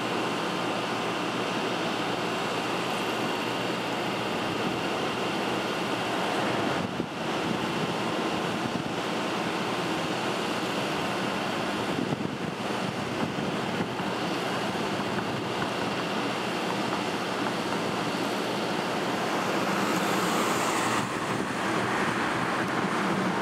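Wind rushing on the microphone over the steady sound of a diesel switcher locomotive running as it pulls a string of passenger cars.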